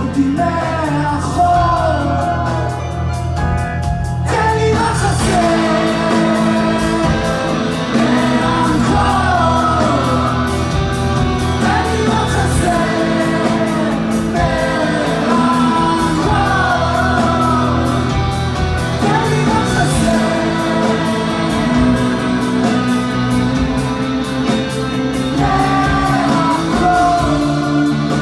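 Live rock band playing a song with a singer's voice over electric guitars, drums and keyboard, heard from among the audience in a large hall.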